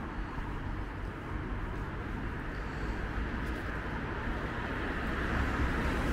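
Road traffic: the steady hiss and rumble of a passing car's tyres and engine on a town street, growing louder as it approaches near the end.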